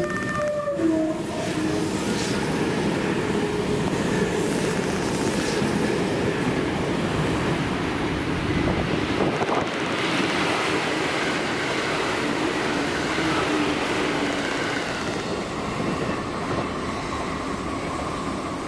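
Electric train running past on the tracks: a steady, loud rumble of wheels on rails.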